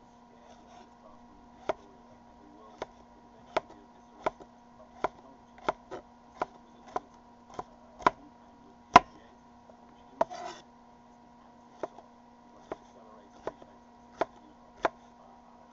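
Kitchen knife chopping a green chili pepper on a wooden cutting board: sharp knocks of the blade hitting the board, about one every half-second to second at an uneven pace, over a steady low hum.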